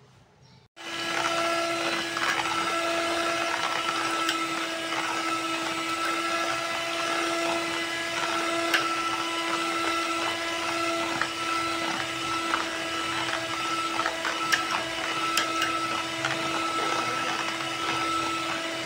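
Electric hand mixer switched on about a second in, running at one steady pitch as its beaters whisk eggs and milk in a plastic bowl, with occasional clicks of the beaters against the bowl.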